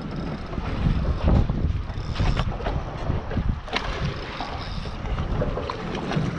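Wind gusting on the microphone in low rumbles, with water splashing beside a small boat and a sharp knock about four seconds in.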